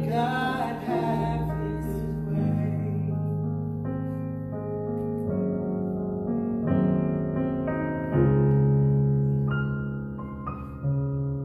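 Slow, sustained electric-piano chords played on a Yamaha MOXF synthesizer keyboard, changing every second or two. A voice sings briefly at the start.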